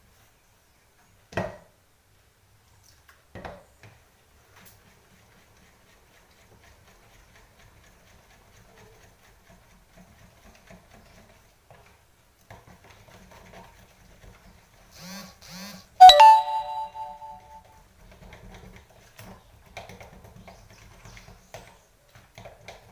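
Quiet scraping of a spoon stirring thick gram-flour batter in a bowl, with a few light clicks. About sixteen seconds in, one loud ringing ding that fades away over about two seconds.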